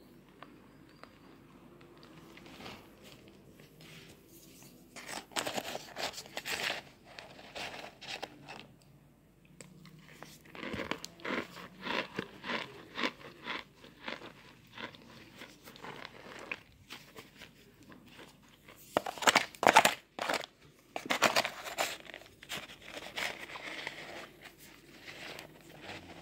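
Chunks of pressed cornstarch being crunched, in several bursts of quick crackly crunches with short pauses between them. The loudest burst comes about two thirds of the way through.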